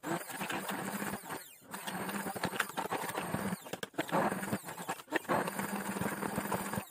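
Immersion blender running in a saucepan, puréeing boiled carrot with cottage cheese, sugar and egg yolks. The motor runs steadily, dipping briefly about three times as the blade works through the thick mash.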